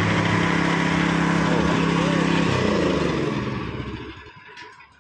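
Engine driving a lowbed trailer's hydraulic ramp lift, running steadily, then slowing and stopping about three to four seconds in.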